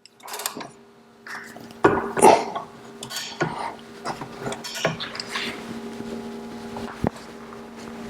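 Metal tools clinking, knocking and scraping against a Model T generator housing held in a vise while its field pole screws are tightened, with a sharp click about seven seconds in and a faint steady hum underneath.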